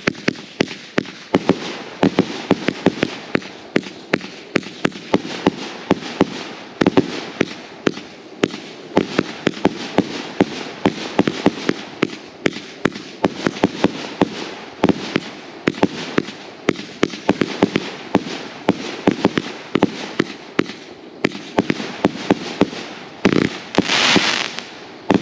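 A Woah Nelly 49-shot fireworks cake firing loudly: a rapid string of launches and sharp bangs, several a second, with a denser, louder stretch lasting about a second near the end.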